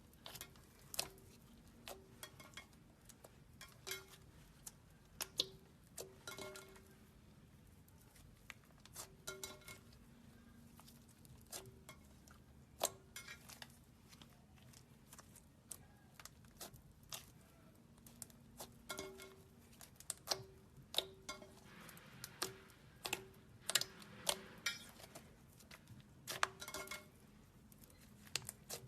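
Slime being kneaded and pressed by hand: faint, irregular soft clicks and small pops, busier near the end.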